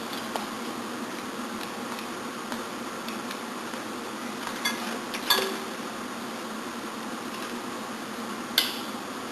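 A few sharp light clicks and taps of parts being handled while a hose shroud is worked onto a vacuum hose, over a steady background hiss and hum.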